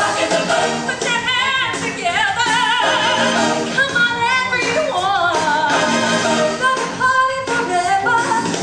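A stage musical number performed live: cast singers with a lot of vibrato in their voices, singing into handheld microphones over instrumental accompaniment, recorded from the audience.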